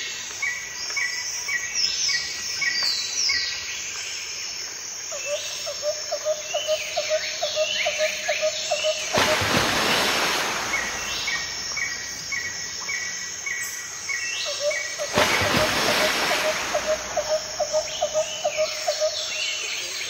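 Several forest birds calling at once: runs of short repeated whistles and falling and rising chirps, and twice a fast series of lower notes. Two bursts of rushing noise, each about a second and a half long, come near the middle.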